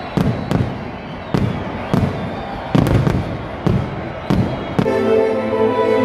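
Aerial firework shells bursting overhead: a string of about ten sharp bangs at uneven intervals, some in quick succession. Music starts up near the end.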